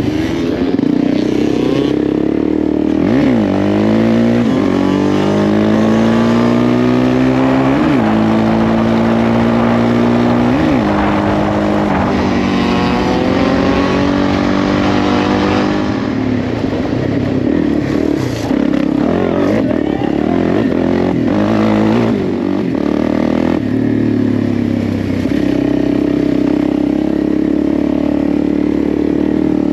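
Single-cylinder off-road engine accelerating through the gears. Its pitch climbs and drops suddenly at each upshift, about three times in the first eleven seconds, then it runs on with the throttle opening and closing.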